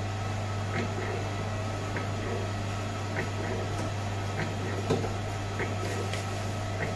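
Electric dough sheeter running with a steady low motor hum and light, regular clicks from its mechanism, plus a single louder knock about five seconds in.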